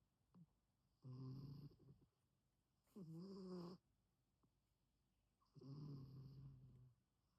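A sleeping pet snoring: three drawn-out snores about two seconds apart, the middle one wavering in pitch.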